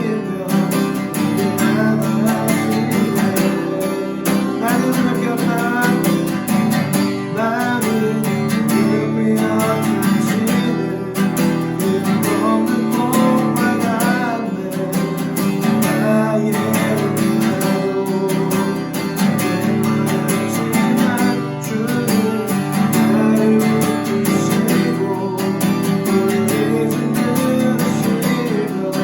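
Worship music led by a strummed acoustic guitar, with singing at times.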